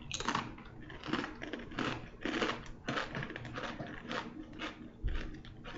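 A person chewing crunchy food with irregular crunches, tasting a hot sauce, with a low thump near the end.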